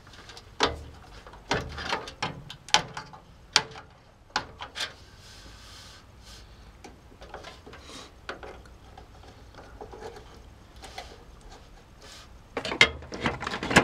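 Computer parts being handled and fitted inside an open PC case: scattered sharp clicks and knocks of plastic and metal, quieter in the middle, with a quick run of clicks near the end.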